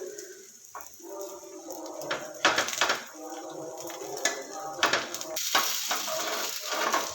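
Metal kitchen utensils clinking and knocking against cookware, several sharp knocks among them, with a voice-like sound running underneath.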